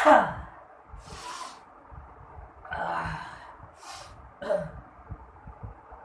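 A man sneezing hard once right at the start, set off by a matchstick tickling inside his nostril. Then come several sniffs and breaths, and a second short, sharp vocal burst about four and a half seconds in.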